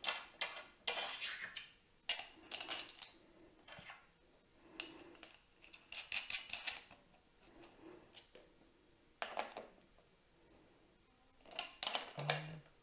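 Small metal clinks and rattles of a nut, washer and cable lug being handled and fitted onto a LiFePO4 cell's negative terminal, in short irregular bursts with pauses between.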